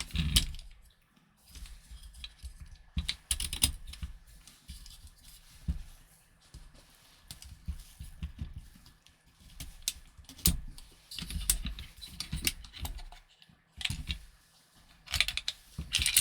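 Irregular clicks, taps and light rattles of small metal and plastic parts being handled as a Wolverine MTW-9 airsoft rifle is taken apart, with louder clusters of clicking around three, eleven and fifteen seconds in.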